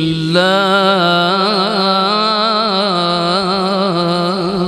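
A male qari reciting the Quran in the melodic tilawat style, drawing out one long held phrase with slow wavering ornaments; a new phrase begins just after the start and runs on unbroken.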